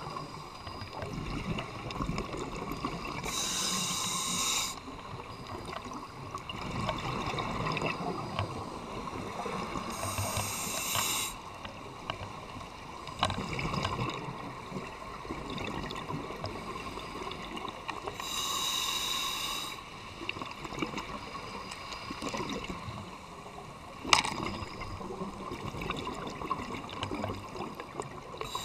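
Scuba diver breathing through a regulator underwater: a hissing breath three times, about seven to eight seconds apart, with bubbling and gurgling between them. A single sharp click about 24 seconds in.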